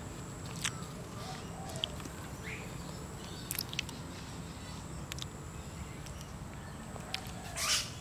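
Quiet outdoor background: a steady low rumble with a few faint short chirps and clicks scattered through it.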